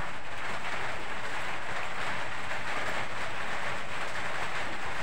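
Heavy rain falling steadily, an even hiss that does not change.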